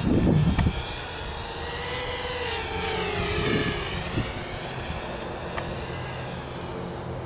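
Walkera F210 racing quadcopter flying, its brushless motors and propellers giving a high whine that dips and rises in pitch around the middle as it speeds along. A burst of wind noise on the microphone is heard at the start.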